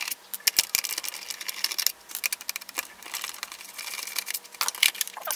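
Hand screwdriver turning screws out of the plastic housing of a Toyota Ipsum heater control unit: an irregular run of small clicks and scrapes of metal on plastic.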